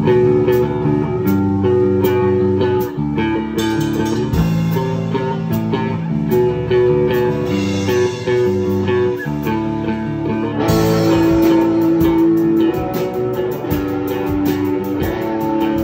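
Live band playing the instrumental opening of a song on amplified electric guitar and electric bass, with no singing. A fast, even ticking of percussion joins about eleven seconds in.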